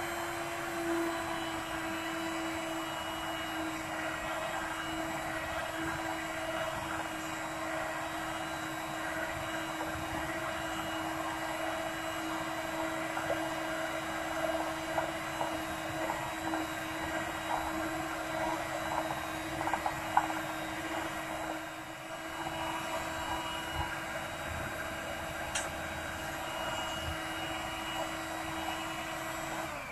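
Electric hand mixer running steadily at one speed, its beaters working a thick pandesal dough, with a few knocks of the beaters against the bowl. It switches off at the very end.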